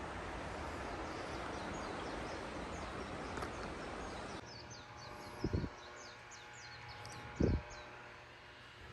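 A steady rushing noise for the first few seconds, then an abrupt change to a quieter outdoor background where small birds chirp in quick runs of short high notes. Two brief low thumps come in the second half.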